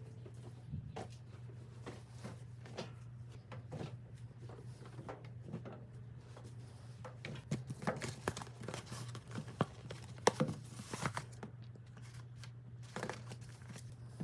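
Household handling sounds during laundry: scattered soft knocks, clicks and cloth-like rustles, busiest in the middle stretch, over a steady low hum.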